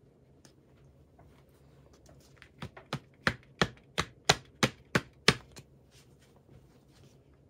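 A batter-filled paper baking mold rapped down on a wooden table about ten times in quick succession, roughly three knocks a second, to knock air bubbles out of the batter and level its surface.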